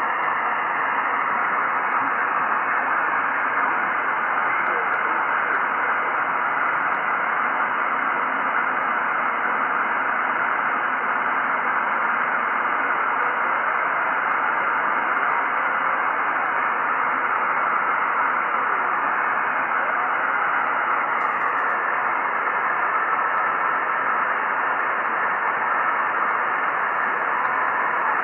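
Steady hiss from an Icom IC-9700 receiving upper sideband on the FO-29 satellite's downlink, while the receiver is tuned down through the passband.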